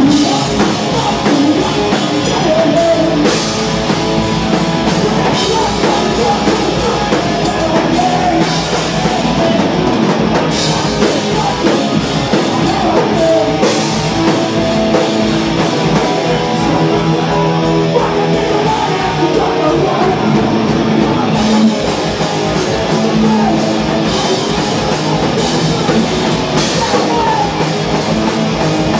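Hardcore punk band playing live: distorted electric guitars and a drum kit at full volume, with a singer's vocals over the top.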